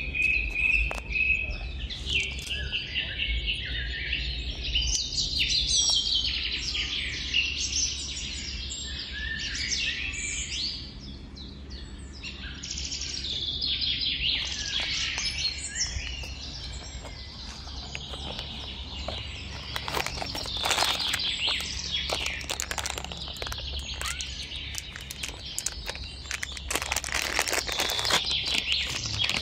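Small birds chirping and singing, many short calls and trills overlapping, with a run of short clicks or rustles in the last third.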